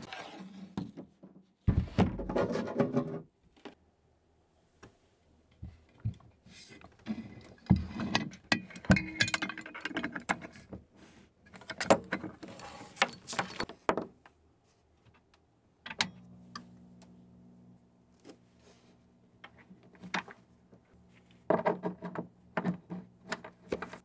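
Knocks, clunks and cable rattling as an ATTEN MS-900 soldering station and its leads are unpacked and set up. About sixteen seconds in there is a sharp click, and then a steady low hum runs under further handling noises.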